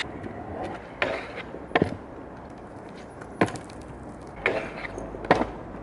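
Stunt scooter clacking onto pavement and a freshly waxed ledge as tricks are tried, about five sharp knocks roughly a second apart.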